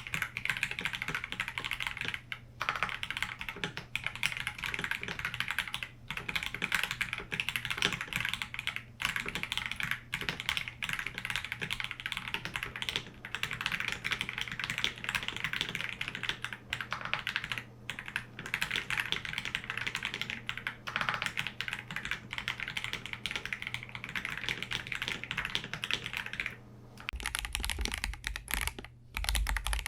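Continuous fast typing on a KBD67 Lite R3 mechanical keyboard fitted with Akko Starfish switches: a dense clatter of keystrokes with brief pauses every few seconds.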